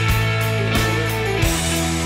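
Background rock music with electric guitar and a steady drum beat.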